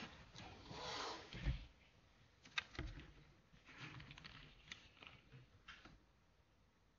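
Faint handling noise at a desk: a soft rustle, then a few scattered clicks and light knocks, dying away toward the end.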